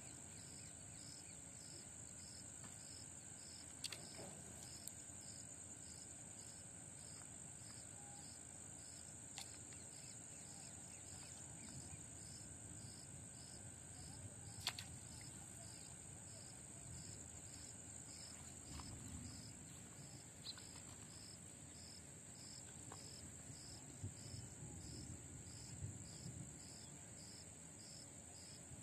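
Faint, steady high-pitched insect chirping, crickets or similar, with a regular pulsing beat. A few sharp clicks stand out, the loudest about halfway through.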